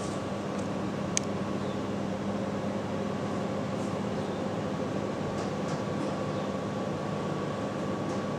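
Steady room hum and hiss from a machine such as air conditioning, with a single sharp click about a second in.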